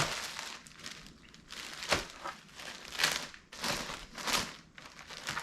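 Packaging crinkling and rustling in irregular handfuls as an item is unwrapped and handled, with a few sharper crinkles in the second half.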